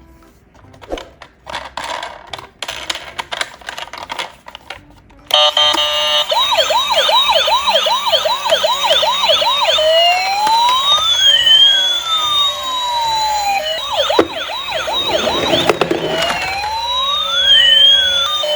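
Electronic police and ambulance sirens, as on toy cars, starting suddenly about five seconds in, with two or more sirens overlapping. Each switches between a fast yelp, warbling a couple of times a second, and a slow wail that rises and falls. Light clicking and clattering come before the sirens start.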